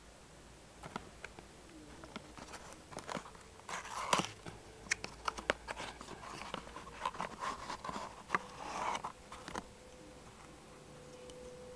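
Handling noise from a thin cardboard box being opened, rustling and scraping, with irregular clicks and taps as a small wooden-framed sand hourglass is slid out of it.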